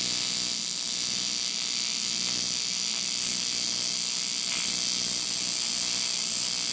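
Argon (TIG) welding arc running steadily, building up weld metal over the worn bearing surface of a steel snowmobile suspension shaft.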